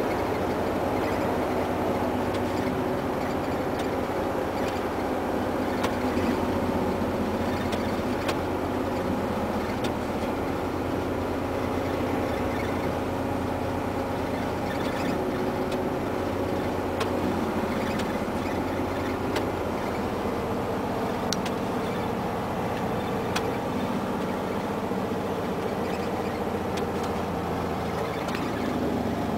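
Mercedes-Benz Actros 1848 truck heard from inside its cab while driving: the V6 diesel engine runs steadily under way, over road and tyre noise, with occasional faint clicks of cab rattles.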